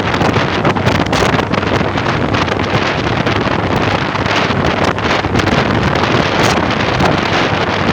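Strong wind buffeting the microphone, a loud, continuous rumbling rush that gusts unevenly.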